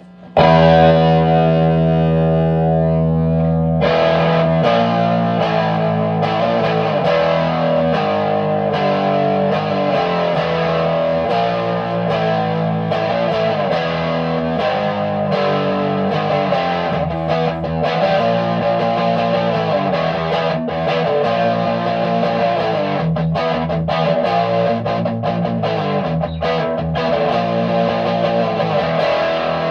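Heavily distorted electric guitar played through a restored Sunn Model T tube amplifier head in a sound check. A loud chord is let ring for about three seconds, then a riff of changing chords and notes follows.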